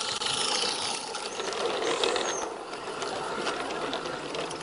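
Small 16mm-scale narrow-gauge garden-railway locomotive and coaches running past close by: rapid, even clicking of wheels and running gear on the track. It is loudest about two seconds in.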